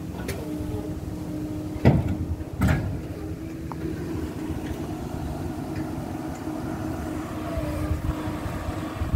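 An engine running steadily at low revs, with two loud knocks a little under a second apart about two seconds in.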